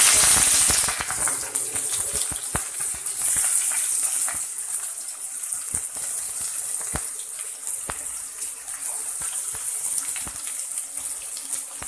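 Sliced red onion hitting hot oil in a kadai: a loud sizzle bursts up at once, then eases into a steady frying hiss scattered with pops and crackles.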